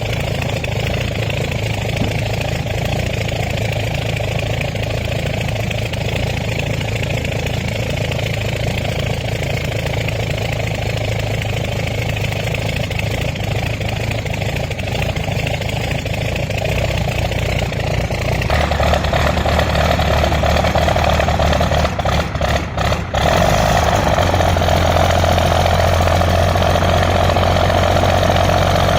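An engine running steadily at low revs; about 18 seconds in its note steps up and grows louder, with a couple of brief dropouts a few seconds later.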